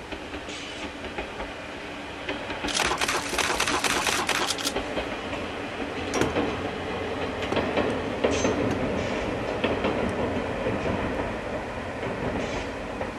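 Two-car diesel railcar train running past: engine drone under the wheels clicking and clattering over the rail joints, with a loud stretch of dense rattling about three seconds in.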